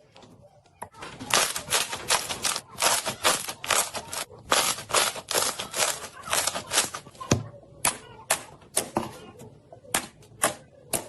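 Slime being squeezed and pressed by hand, giving a quick irregular run of sharp pops and clicks, several a second, that thins out after about seven seconds.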